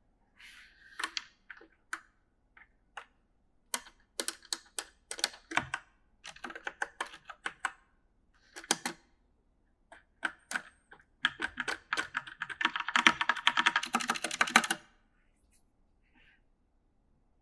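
Mechanical gaming keyboard being typed on in uneven bursts of key clicks with short pauses between them. Near the end comes a fast, dense run of keystrokes lasting a few seconds.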